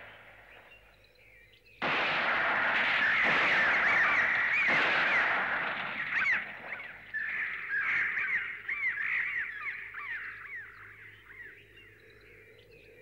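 Animated-series sound effect of birds of prey crying as they fly off: many short, high, arching calls repeated over a rushing noise. The rushing starts suddenly about two seconds in, and the whole sound fades away near the end.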